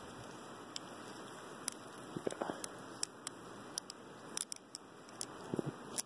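Balisong (butterfly knife) being reverse-fanned by hand: irregular light clicks of the handles and pivots, roughly one or two a second, as the knife is spun and flicked back off a finger. Steady faint hiss beneath.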